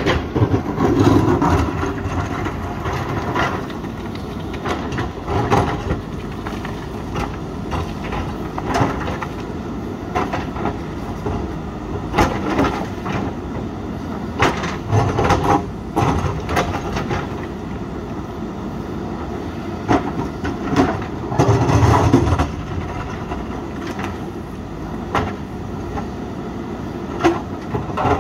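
JCB 3DX backhoe loader's diesel engine running under load while its bucket scrapes and knocks against rock in repeated sharp clatters. A louder surge of engine and scraping comes about three-quarters of the way through.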